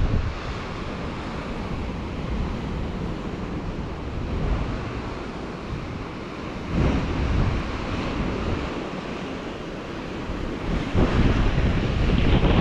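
Sea surf washing and breaking on a rocky lava shore, mixed with wind buffeting the microphone. The noise swells louder about seven seconds in and again near the end.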